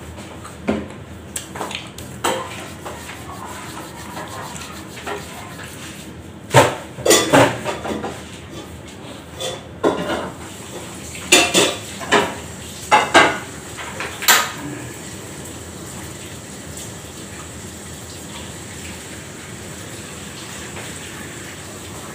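Metal dishes and cutlery clinking and clattering in short sharp knocks, most of them bunched between about six and fifteen seconds in.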